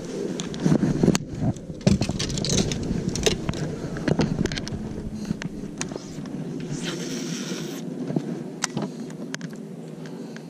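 Clothing rubbing and knocking against a body-worn action camera's microphone, with scuffs and thumps from moving about on a fibreglass boat deck; a scattered run of knocks and scrapes that settles to a steadier low rumble in the second half.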